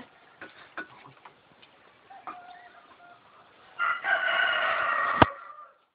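A drawn-out bird call lasting about two seconds, starting a little past halfway, with a sharp knock just before it ends. Faint clicks and a short tone come before it.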